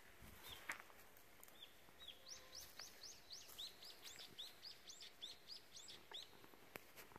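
A small songbird singing faintly: a few single high chirps, then from about two seconds in a quick run of short, high chirps, four or five a second, that stops a little before the end.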